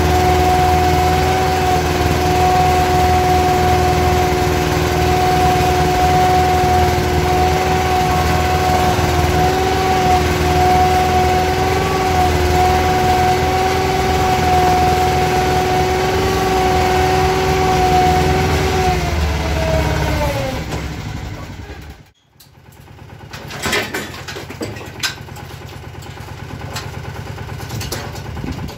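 Yağmur YET 510 patpat's engine running steadily under way, heard from inside its cab. About 19 s in, the engine note drops and fades. After a short break, a quieter engine runs with a few knocks.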